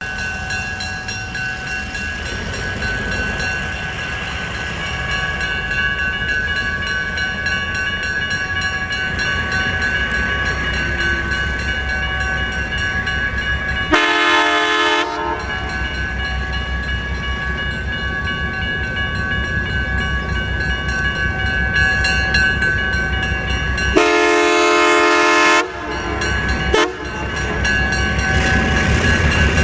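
Diesel locomotive running with a steady low engine rumble, sounding its air horn: a short blast about halfway through, a longer blast about four-fifths of the way in, a brief one just after, and another starting near the end.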